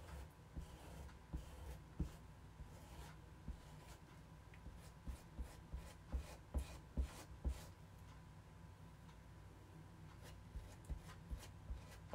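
Faint scraping and light clicking of a scraper pulling chalk paste across a stencil transfer on a wooden cutout, in a run of short strokes.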